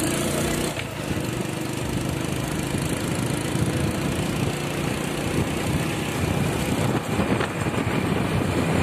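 Motorcycle engine running steadily while riding, with wind rushing over the microphone. The engine hum is clearest in the first second, then mostly buried under the wind noise.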